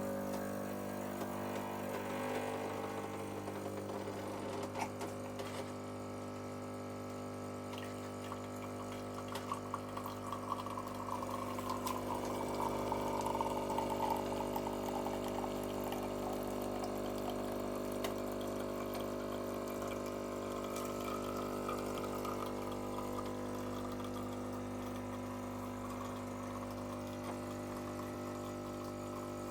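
Miele CM6300 bean-to-cup coffee machine's pump running with a steady hum while liquid pours, growing louder partway through.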